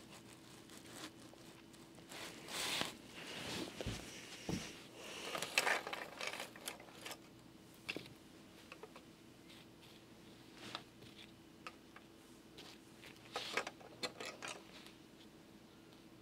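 Faint handling noise of a LEGO set being opened up by hand: plastic pieces clicking and scraping against each other, with rustles, in several short bouts. There are two soft low thumps about four seconds in.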